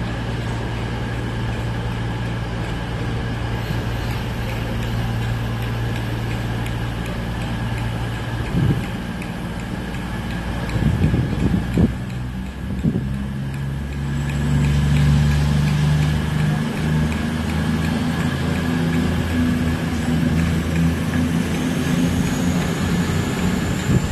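Electric multiple unit rolling slowly past, with a steady mechanical hum and a few knocks from the wheels over rail joints. About halfway through, a louder, deeper drone of motors sets in and holds.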